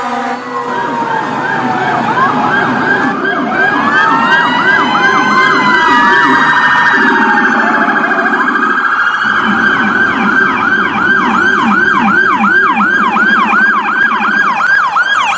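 Several electronic emergency sirens sounding at once: fast repeating yelp sweeps, about three a second, over slower rising-and-falling wails, with the mix of tones changing every few seconds.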